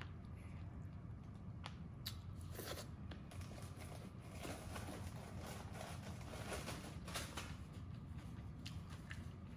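Close-miked chewing of braised pork meatball, with wet mouth clicks and smacks and the rustle of a paper tissue used to wipe the mouth, over a steady low hum.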